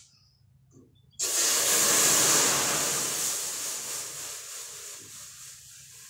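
Carbonated Coca-Cola fizzing with a loud hiss that starts suddenly about a second in. It fades over a few seconds to a fainter fizz as the cola is poured from its bottle into a metal pot.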